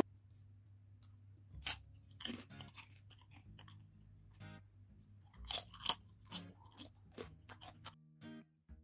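Crisp fried potato chips being bitten and chewed: a run of sharp, irregular crunches, loudest about two seconds in and again around five to six seconds in.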